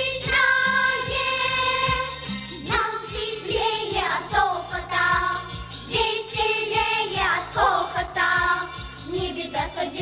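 A song: singing on held notes over an instrumental accompaniment with a steady beat.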